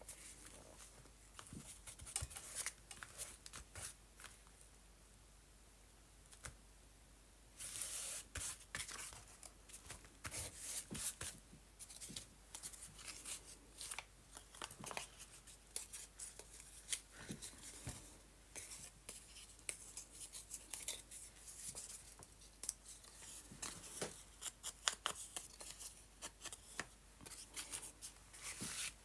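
Paper rustling and crinkling close by as hands handle paper scraps and press them onto a journal page: only faint light taps for the first seven seconds or so, then, from about eight seconds in, dense irregular crackling and rustling.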